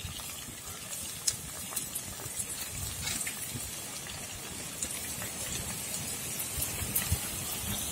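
Chicken rolls deep-frying in hot oil: a steady sizzle with many small scattered pops and crackles as the rolls go in.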